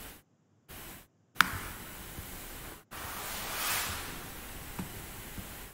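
Steady microphone hiss that cuts in and out several times, as if through a noise gate, with one sharp click about one and a half seconds in and a faint tick near the end.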